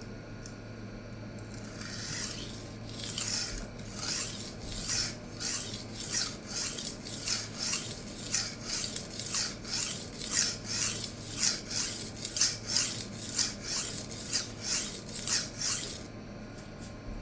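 A 52100 steel chef knife blade stroked back and forth on a wet diamond sharpening stone, a rhythmic scraping of about two strokes a second. The strokes start about two seconds in, grow louder, and stop about a second before the end.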